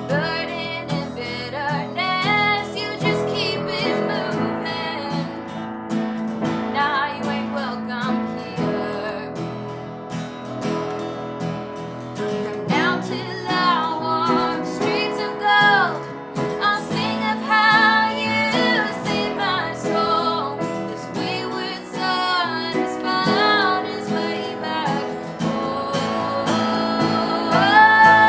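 Worship song: a voice singing a melody over strummed acoustic guitar and other sustained instruments.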